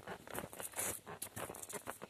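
Footsteps of a hiker on a dirt forest trail, with irregular crunching and rustling of leaves and plants underfoot.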